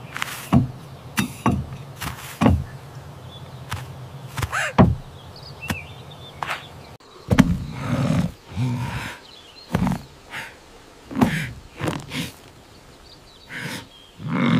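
Cartoon sound effects: a series of thuds and knocks, the deeper, heavier ones coming from about seven seconds in, over a steady low hum that stops about halfway through.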